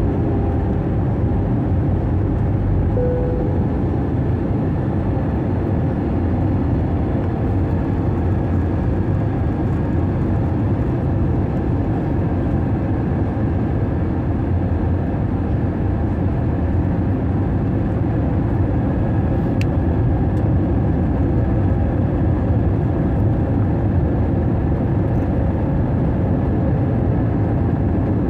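Steady cabin noise of an Airbus A321 on its landing approach: a constant low rumble of the engines and airflow, heard from a window seat over the wing.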